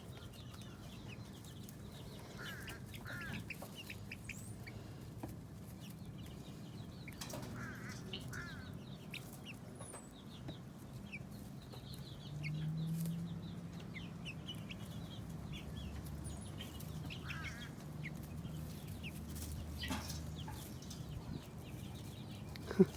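Young chickens peeping and clucking softly in short, scattered calls. A low hum swells briefly about halfway through.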